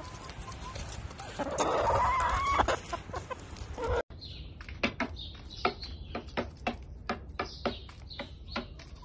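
Hens clucking, with one loud, drawn-out squawk about two seconds in. After a sudden break, a run of short sharp taps and high chirps as hens peck at a hanging red cabbage.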